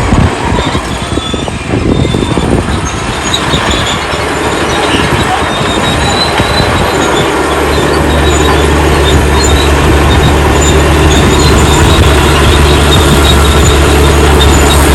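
Old crawler bulldozer working: its engine runs amid the metallic squeal and clatter of its steel tracks. About halfway through, the engine settles into a steady low drone.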